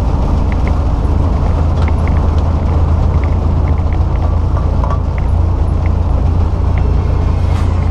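Semi truck driving on a wet highway, heard inside the cab: a steady low engine drone with tyre and road noise, and a few faint scattered ticks.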